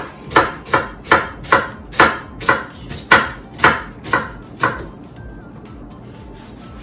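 Kitchen knife chopping vegetables on a wooden cutting board: about ten sharp strikes, roughly two a second, stopping about two-thirds of the way in.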